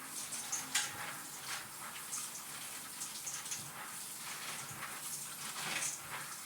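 Warm tap water running onto pumpkin seeds in a colander, a steady splashing hiss with many small spatters as the seeds are rinsed.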